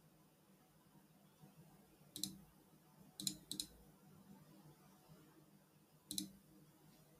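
Computer mouse clicks: four sharp clicks, each a quick press and release, at irregular spacing, the second and third close together, over near silence.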